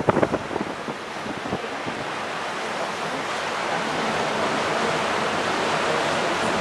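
Steady rush of open-air wind and churning water from a ship's wake, slowly growing a little louder, with a few gusts buffeting the microphone in the first second.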